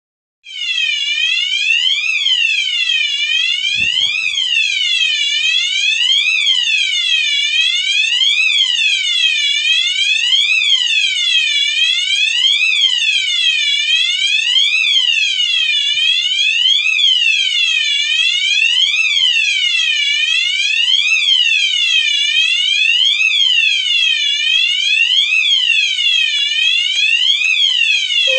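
Loud alarm clock sounding a siren-like tone that sweeps up and down about once a second, starting about half a second in. A single thump about four seconds in.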